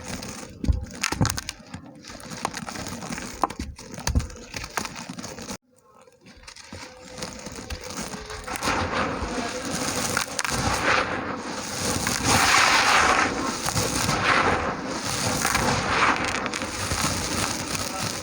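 Dry red dirt chunks cracking and crumbling, with sharp separate snaps for the first few seconds. After a brief cut to silence comes a denser gritty crumbling that swells and eases over and over.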